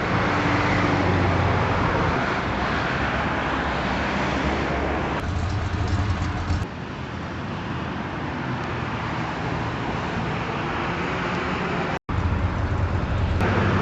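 Steady, fairly loud background noise with no clear tones. It changes abruptly about five and six and a half seconds in, and cuts out to silence for an instant about twelve seconds in.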